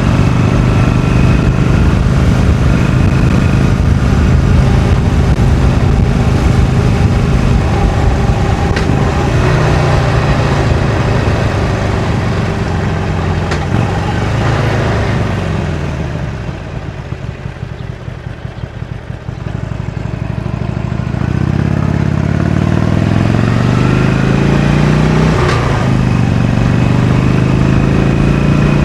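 Harley-Davidson Iron 883's air-cooled V-twin running through its stock exhaust while riding: the revs fall off about halfway through, the engine runs quieter at low revs for a few seconds, then it pulls up through the gears again, pitch rising with a drop at a gear change near the end.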